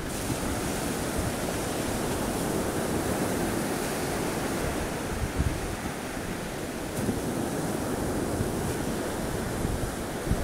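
Surf washing steadily: a continuous hiss of breaking waves, with wind buffeting the microphone.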